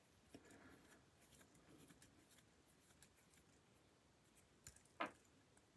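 Near silence with faint rustles and small clicks of a wristwatch being handled between the fingers, and one sharper click about five seconds in.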